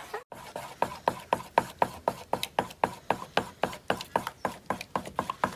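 Wooden spoon knocking against the side of a plastic mixing bowl while stirring a thick, lumpy mix of white glue and water, about four knocks a second, each with a short ringing note.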